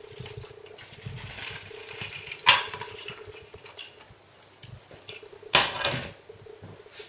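Fried meatball sausages sliding off a paper-lined plate into a glass baking dish, pushed along by a silicone spatula. Soft knocks, scraping and paper rustle, with two louder knocks about two and a half and five and a half seconds in.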